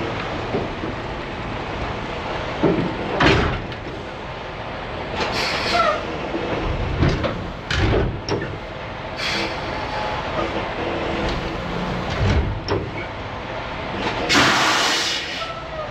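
Semi-truck running as it manoeuvres at low speed, with several short bursts of hissing and a few low thumps; the longest hiss comes near the end.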